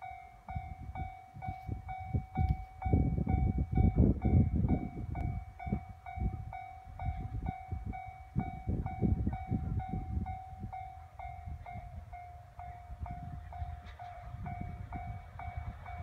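Railway level-crossing alarm ringing, a repeated ding struck about twice a second, warning that a train is approaching. Under it is an uneven low rumble, loudest a few seconds in.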